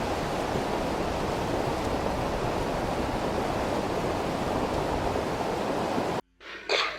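Muddy floodwater rushing in a steady roar of noise. It cuts off suddenly about six seconds in, followed by a brief swish.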